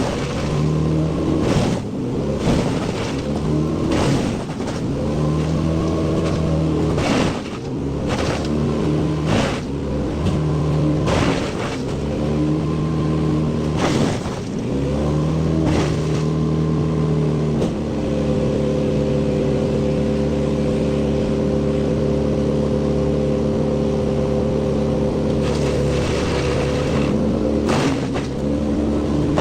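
Wood chipper feeding a pine tree through its blades: the engine's pitch sags and recovers again and again under load, with repeated sharp cracks of wood being chipped. For the last ten seconds or so the engine holds a steady speed, with a few more cracks near the end.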